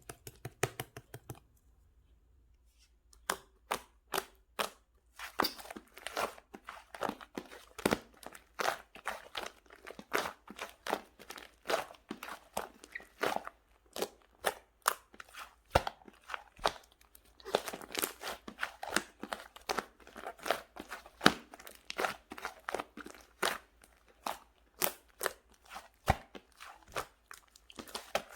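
Slime being pressed and kneaded by hand, making a steady run of sharp, crisp clicks and crackles, two to three a second, starting about three seconds in.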